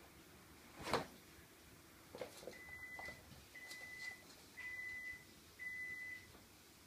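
A single sharp knock about a second in, then four electronic beeps at one steady high pitch, about one a second, each a little over half a second long.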